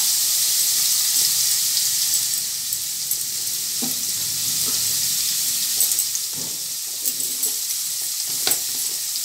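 Paneer cubes frying in hot oil in a steel kadai: a steady sizzle with a few scattered pops and crackles.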